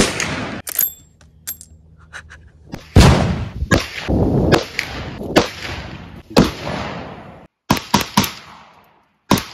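Gunshots from several firearms in turn. A scoped lever-action rifle fires once at the start. A revolver then fires five shots about a second apart, each with a long echo; these are the loudest. Near the end comes a quick cluster of sharper, quieter cracks from a suppressed AR-style rifle.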